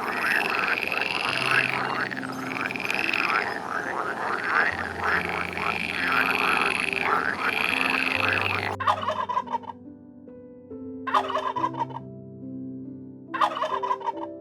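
A flock of birds calls loudly, many calls overlapping, for about nine seconds. Then single short bursts of calling come about every two seconds. Background music plays steady notes underneath.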